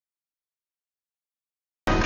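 Dead silence, then sustained machine-gun fire cuts in abruptly right at the end.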